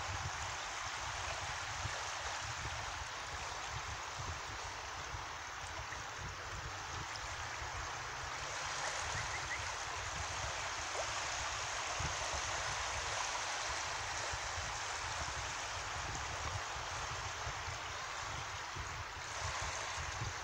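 Small waves washing in on the shore: a steady rushing hiss of gentle surf that grows a little louder about halfway through.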